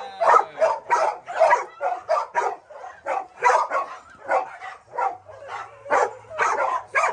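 Dogs barking over and over, about three barks a second.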